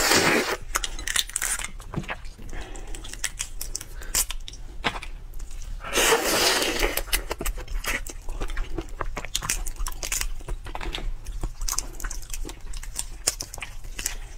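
Close-up eating sounds of a large red prawn: loud slurping and sucking at the head at the start and again for about a second around six seconds in, with shell crunching, cracking and tearing between.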